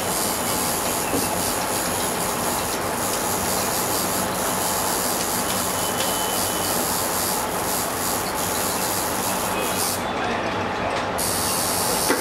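Steady loud rushing noise, its higher part dropping out for about a second near the end.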